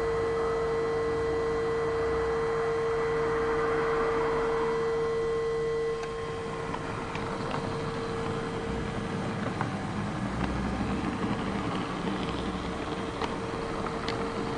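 HO-scale (16-gauge, 1/80) model train heard from a camera riding on it: a steady electric hum that weakens about six seconds in, after which the running turns noisier with scattered light clicks.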